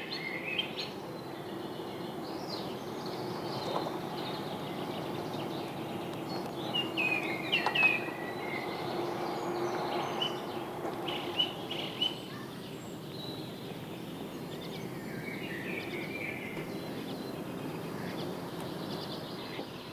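Outdoor lakeside ambience: small birds chirping and singing in short phrases now and then over a steady background hiss with a faint low hum.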